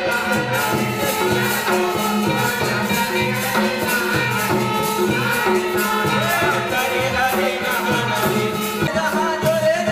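Live accompaniment for a Panthi folk dance: a quick, even beat of rattling percussion under a wavering melody line.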